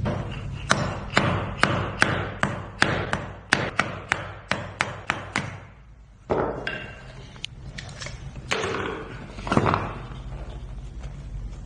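Hammer tapping on metal, about fourteen sharp taps at roughly three a second, then a pause and a few scattered knocks and a thump: knocking the faulty bearing off an electric die grinder's shaft.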